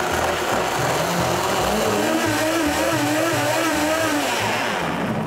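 Blendtec countertop blender running steadily, its motor and blades churning a thick mix of water, soaked hazelnuts and rice into a creamy drink.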